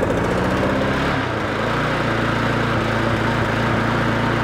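Briggs & Stratton Classic single-cylinder four-stroke lawnmower engine running just after being pull-started, changing its beat about a second in and then settling into a steady run.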